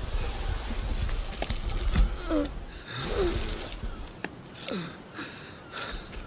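A fly buzzing around in short passes that swoop up and down in pitch, over a low rumble of wind.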